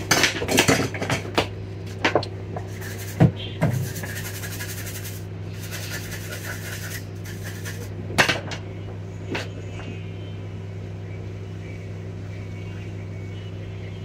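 Small metal hand tools clicking and clinking against each other and the bench, several sharp knocks in the first four seconds and again about eight seconds in, with a few seconds of hiss between them, over a steady low hum.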